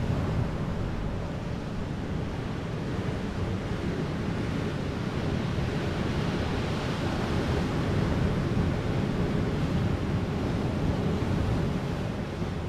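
Sea surf breaking and washing up a pebble beach, a steady rushing wash that swells about halfway through as a bigger wave comes in, with wind buffeting the microphone.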